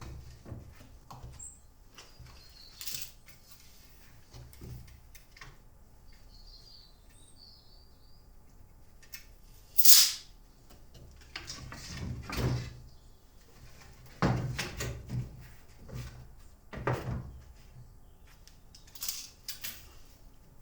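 A series of irregular knocks and thumps, the loudest a single sharp knock about halfway through, with a few birds chirping faintly.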